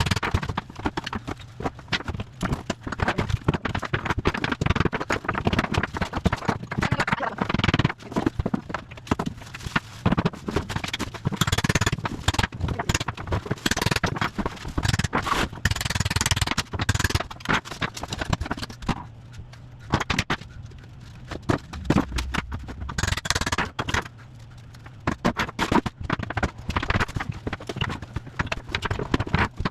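Irregular scraping and knocking of hand demolition work on bathroom fixtures and debris, over a low steady hum.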